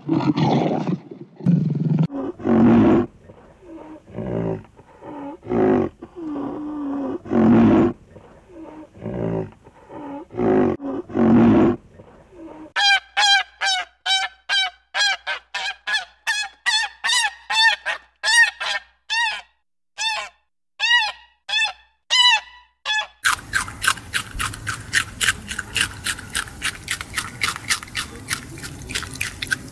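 A lion's roaring bout of deep grunts, about one a second. About 13 seconds in this gives way to a rapid series of honking waterfowl calls, two to three a second. Near the end comes a fast, steady crunching: a rabbit chewing.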